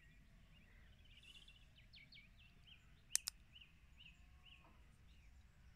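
Two sharp clicks close together about three seconds in: the magnetic charging cable snapping onto the tail of an Olight H2R Nova torch. Faint birdsong of short repeated chirps behind.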